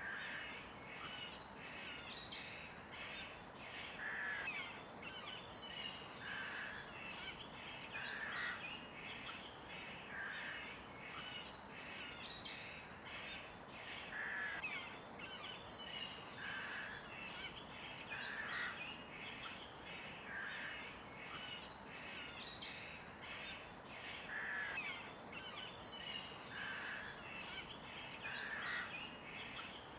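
Several songbirds chirping and twittering continuously, many quick high falling chirps overlapping, with lower calls every couple of seconds over a faint steady hiss.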